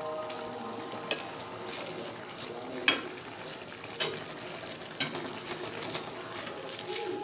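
Chopped cabbage being stirred in a sizzling pan, with a steady frying hiss and a few sharp clinks of the spatula against the pan, about one a second.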